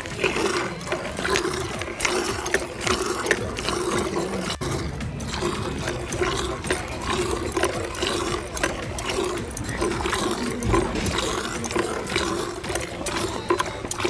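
A goat being milked by hand: short squirts of milk hitting a plastic bucket again and again, in a quick, even rhythm.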